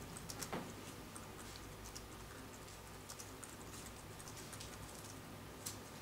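Faint scattered clicks and taps of a laptop being worked to advance a presentation slide, over a low steady hum.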